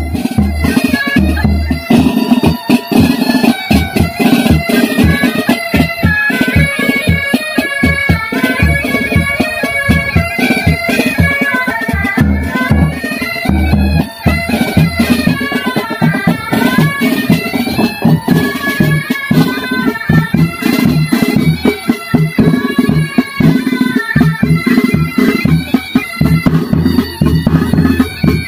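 Military pipe band playing: bagpipes sounding a melody over their steady drones, with snare, tenor and bass drums beating time. The bass drum beats are heaviest near the start and near the end.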